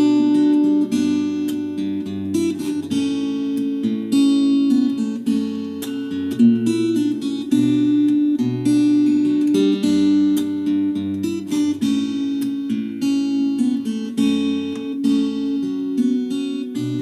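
Steel-string acoustic-electric guitar played without singing, picked and strummed chords changing every second or so. The guitar runs through a TC-Helicon Play Acoustic effects processor on its preset setting.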